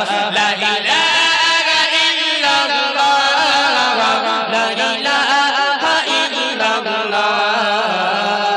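Male voices singing a Bengali Islamic gojol, the melody drawn out and wavering over a steady low hum.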